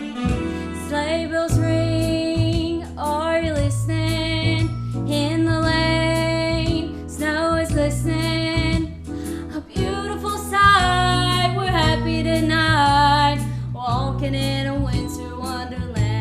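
Music: a melody with vibrato over a band and a repeating bass line.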